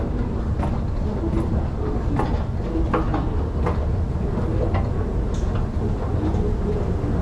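Escalator running, a steady low mechanical rumble with light clicks coming at a regular pace.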